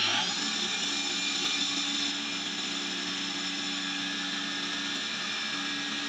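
Belt-driven electric flour mill (atta chakki) running at full speed: a steady high whine over a low hum. The whine stops rising and levels off right at the start, as the grinder reaches running speed.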